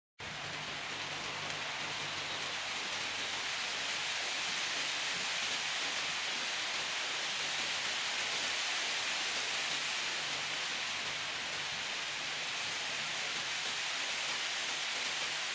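Wind sound effect: a steady, even rush of wind that cuts in suddenly just after the start and rises a little over the first few seconds, with no gusts or breaks.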